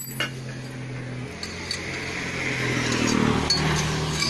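A motor vehicle's engine hum swells and eases as it passes, with a few light metallic clinks of hand tools, a T-handle socket wrench among them, over it.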